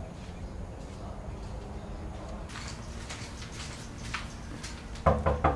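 Three quick knocks on a wooden door near the end. Before them there is only a low, steady background with a few faint high chirps.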